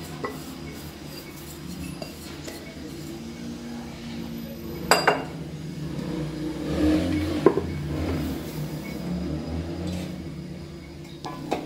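A glass bowl handled against a plastic kneading basin while flour is tipped in, with a sharp knock of glass on the basin about five seconds in, then liquid pouring into the basin over a steady low hum.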